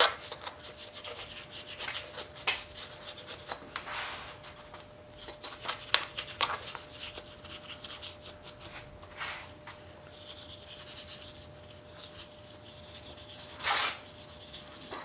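Bristle paintbrush scrubbing lacquer thinner over a Briggs & Stratton engine block: irregular short scratchy strokes, one louder stroke near the end.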